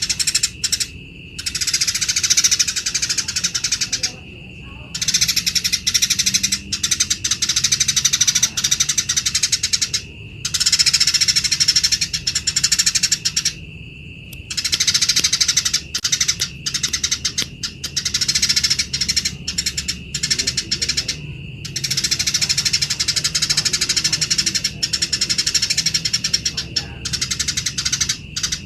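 Eurasian tree sparrows chattering harshly in rapid, rasping runs of fighting calls, in long bouts broken by short pauses.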